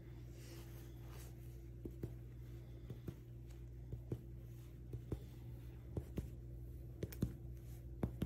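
Chest percussion on the back: a finger striking a finger laid flat on the chest wall, light taps in pairs about once a second, working down the back of a healthy chest. A steady low hum runs underneath.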